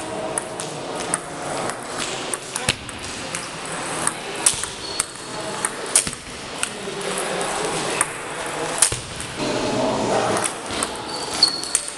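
Table tennis ball clicking sharply off the rackets and the table in quick, irregular hits during rallies, over a low murmur of voices in the hall.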